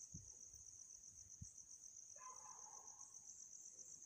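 Near silence with a steady, high-pitched insect chirring in the background and two faint low thumps, the second about a second and a half in.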